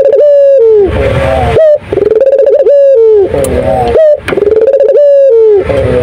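Ringneck dove (the domestic 'puter' dove) cooing loudly close by. It repeats a rolling coo phrase about every two seconds.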